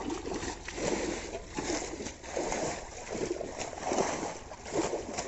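Water splashing and sloshing in a run of uneven splashes, a little more than one a second.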